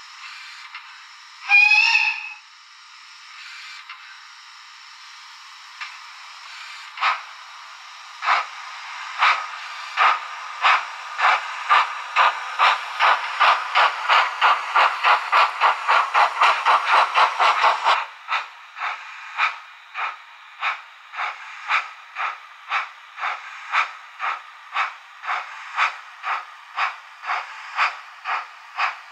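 Sound decoder of a model ÖBB class 52 (BR 52) steam locomotive, heard through its small speaker with no low end: a hiss of steam, a short whistle about two seconds in, then exhaust chuffs that start slowly and quicken as the engine gets under way. About eighteen seconds in the chuffs turn softer and a little slower, at around two a second.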